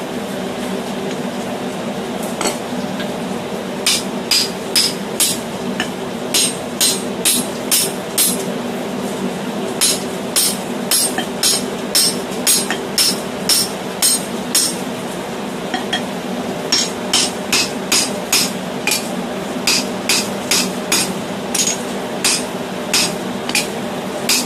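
Hand hammer striking a steel drift, driving it through the punched eye of a red-hot hexagonal steel hammer head on the anvil. The ringing steel-on-steel blows come in runs of about two a second, with short pauses between runs.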